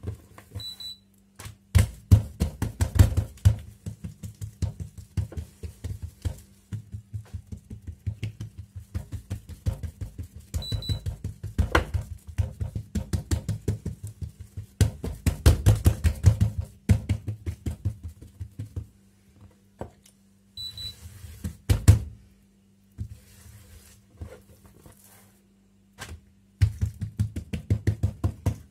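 Hands slapping and patting oiled malwi dough flat on a kitchen counter: quick runs of pats, several a second, with short pauses and a longer lull near the end.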